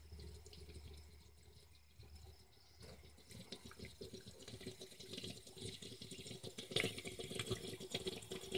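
Motor oil pouring from a plastic jug into a funnel, glugging and gurgling. The gurgling starts about three seconds in and grows busier.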